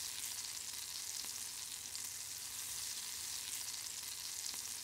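Steady sizzling hiss from a gas grill cooking whole fish on a soaked cedar plank beside a smoking box of cherry wood chips, with a few faint crackles.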